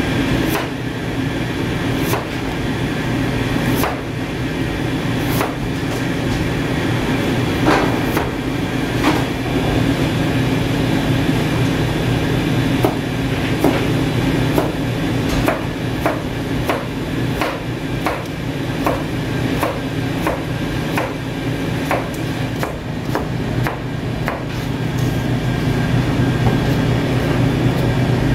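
Chef's knife cutting peeled potatoes on a plastic cutting board, each cut ending in a knock of the blade on the board. The cuts are a second or more apart at first, then come several a second as the slices are cut into thin strips, quickest near the end, over a steady mechanical hum.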